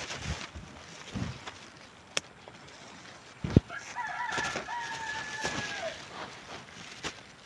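A rooster crows once, starting about three and a half seconds in, one call of about two seconds that drops in pitch at the end. Around it, the rubbing and knocks of a phone handled against cloth, with a sharp thump just before the crow.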